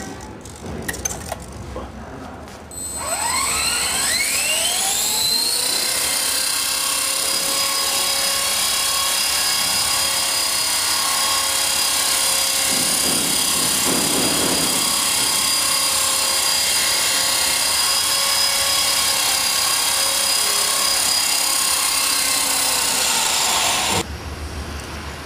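Small electric RC helicopter's motor and rotor head spooling up with a rising whine about three seconds in, then running at a steady high-pitched whine. It cuts off suddenly near the end.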